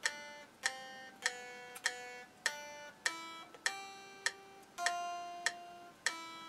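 Fender Squier Stratocaster electric guitar playing a slow single-note practice melody, plucked evenly about once every 0.6 seconds. Each note rings and fades before the next.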